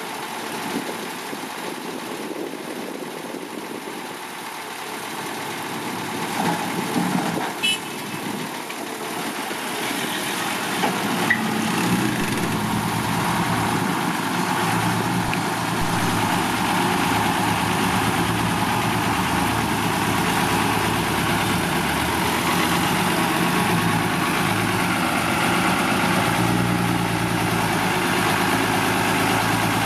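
Six-wheel dump truck's diesel engine running, growing louder over the first ten seconds or so and then holding steady and loud. A few short knocks come about seven seconds in.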